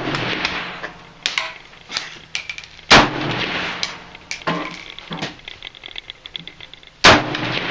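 12-gauge Mossberg 500 pump shotgun firing double-aught buckshot: two loud shots about four seconds apart, about three seconds in and near the end. Between them come pairs of quieter metallic clacks as the pump is worked.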